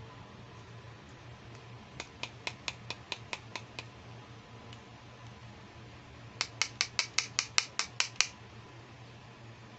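Fingernails tapping quickly on a plastic toy hand mirror: a run of about eight sharp taps about two seconds in, then a louder run of about eleven taps, roughly five a second.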